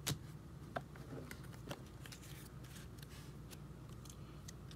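Stack of baseball cards being handled and flipped through: a sharp click of card stock right at the start, another just under a second in, then scattered light ticks and soft slides.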